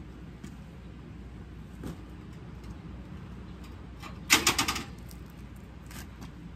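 A quick rattle of sharp clicks, lasting about half a second, as a red city bicycle is pushed off its two-legged kickstand: the stand and bike frame clattering as the bike comes down onto its wheels. Before it there are only a few faint ticks over a low, steady background hum.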